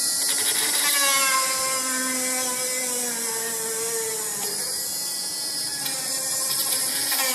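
Small high-speed PCB drilling machine running with a steady high whine while drilling holes in a printed circuit board. Its pitch sags slightly under load and jumps back up about halfway through.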